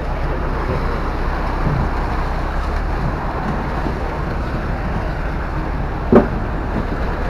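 Steady background noise of a busy fishing harbour's landing floor, a continuous low rumble and hiss, with one sharp knock about six seconds in.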